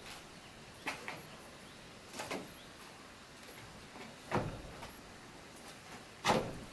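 About five irregular knocks and thuds, a second or two apart, over a faint steady background hiss. The two heaviest thuds fall a little over four seconds in and near the end.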